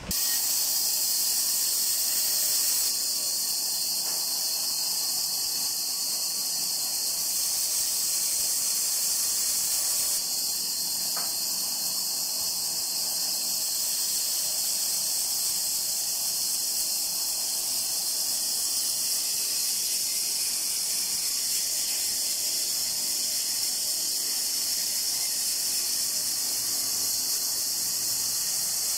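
Band saw running with its blade cutting through a block of rosewood, giving a steady high-pitched hiss.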